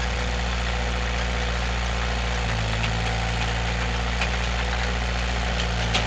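Skid steer engine idling steadily, its low note shifting slightly about two and a half seconds in.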